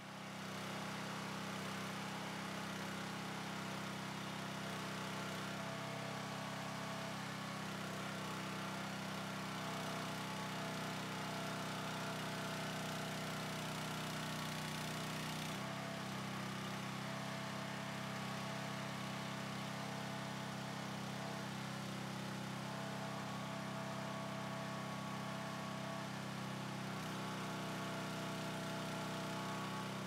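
An engine running steadily at an even speed, with its pitch stepping to a new level a few times along the way, as from the machine handling logs with a grapple.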